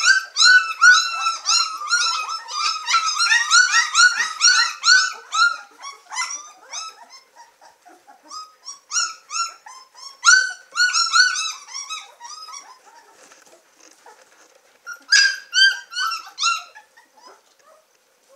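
A litter of two-week-old White Swiss Shepherd puppies squealing and whining together in many short high-pitched cries, eager to nurse as their mother comes to them. The cries are dense at first, come in shorter bursts after about six seconds, and die away near the end as the puppies begin to nurse.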